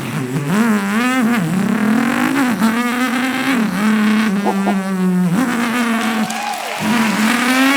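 A man imitating a rally car with his voice: a buzzing engine note that climbs and drops again and again, like revving through gears, with a few short breaks.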